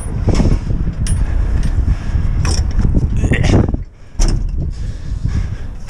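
Metal clanks and rattles of a padlock and steel access gate on a Liebherr tower crane being unlocked and opened, with a rising creak about three and a half seconds in and a sharp clank just after.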